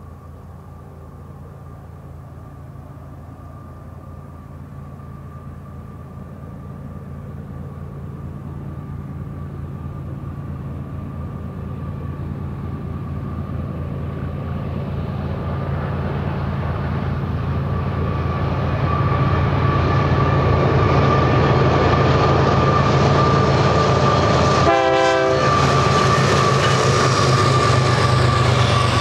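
BNSF diesel freight locomotives approaching and passing close with an intermodal trailer train: a low engine drone with a steady high whine that grows louder for about twenty seconds, then holds as the train rolls by.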